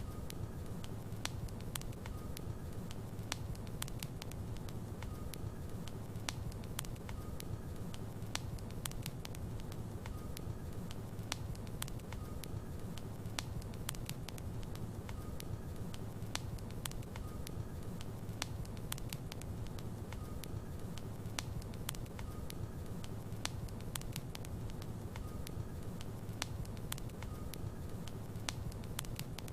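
Wood logs burning in a fireplace: a steady low rumble of flames with frequent sharp crackles and pops throughout.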